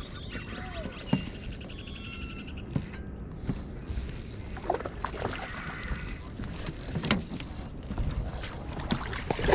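Fishing reel being cranked to bring in a hooked bass, a fast run of fine clicks for the first couple of seconds, with a few scattered knocks and a steady low rumble beneath.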